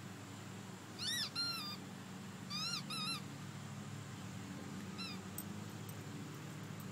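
Short, high-pitched squeals that rise and fall: two quick ones about a second in, two more near three seconds, and a fainter one about five seconds in, over a steady low background hum.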